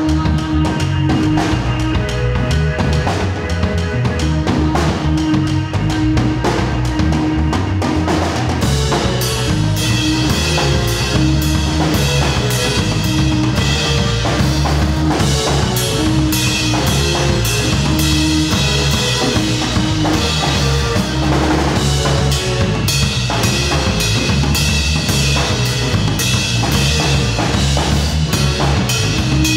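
Live band playing: drum kit, electric bass and a synthesizer keyboard, over a repeating low riff. The drumming grows busier about eight seconds in.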